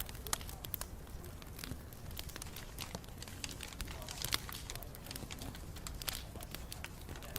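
Wood bonfire crackling: irregular sharp pops and snaps over a steady low rumble.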